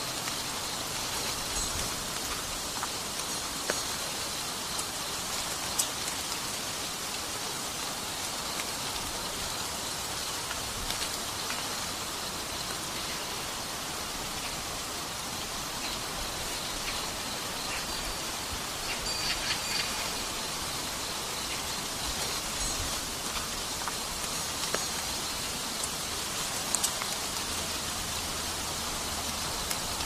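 Steady outdoor hiss of natural ambience, even throughout, with scattered light ticks and taps.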